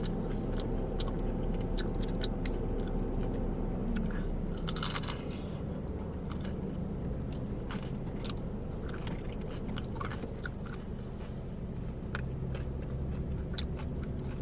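A person biting and chewing a deep-fried cheese rangoon, with crisp wonton-wrapper crunches coming at an irregular pace.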